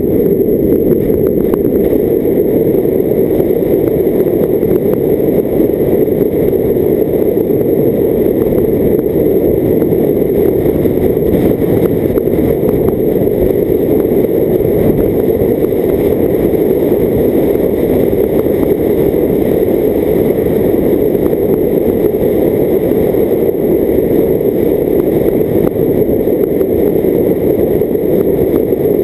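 Car driving along a lane, heard from a camera mounted outside on the bonnet: a steady, muffled rumble of wind and road noise, with no changes in pace.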